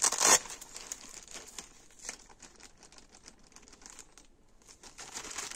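Clear plastic packaging bag crinkling as a cricket elbow guard is handled in it: one loud rustle at the very start, then scattered light crackles that fade in the middle and pick up again near the end.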